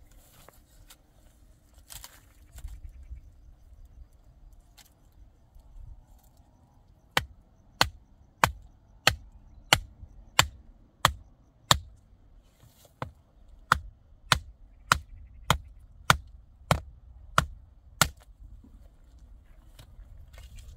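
A steady run of about seventeen sharp impacts, roughly three every two seconds, starting about seven seconds in and stopping about three seconds before the end. Before them there are only a faint low rumble and a few scattered clicks.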